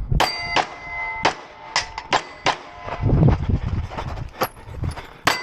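Pistol shots fired in a steady string, about seven or eight over a few seconds, with metallic ringing after many of them, as of steel targets being hit.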